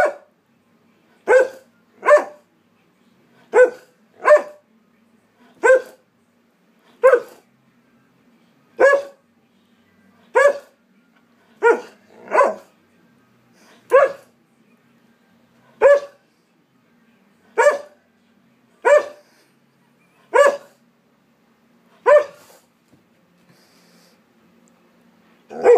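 Alaskan Malamute barking: short single barks about every second and a half, some in quick pairs, with a pause near the end.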